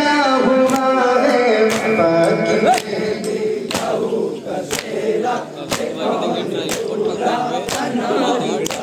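Men's voices chanting a nauha together in long held notes. From about three seconds in, the chanting gives way to crowd voices and unison matam chest-beats, about one sharp stroke a second.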